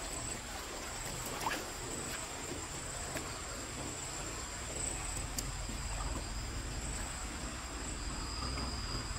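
Night insects, crickets among them, trilling steadily in two high pitches over a low, steady rumble, with a few faint clicks.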